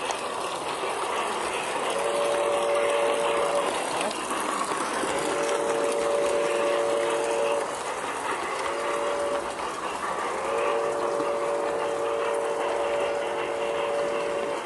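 G-scale model steam locomotive's whistle blowing two long blasts, one short and one long, the grade-crossing signal, each a steady chord of several notes. Under it runs the steady rolling noise of the train on the track.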